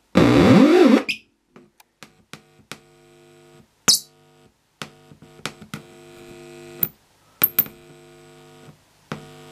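Homebrew transistor audio amplifier heard through its loudspeaker: a loud warbling oscillation tone that slides down and back up in pitch for about the first second. Then come clicks and a buzzing mains hum that starts and stops several times as a finger touches the amplifier's sensitive input.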